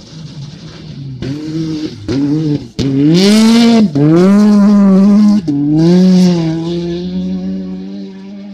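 Rally car engine revving hard as it speeds past, its pitch climbing and dropping through several gear changes with brief cuts between them, loudest about three to six seconds in and then fading.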